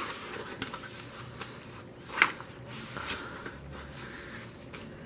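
Stiff pages of a thick photobook being turned by hand: paper rustling and light clicks, with one sharp snap of paper about two seconds in.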